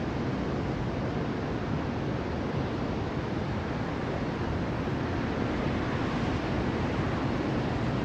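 Surf breaking and washing up on a sandy beach in a steady, continuous wash of waves.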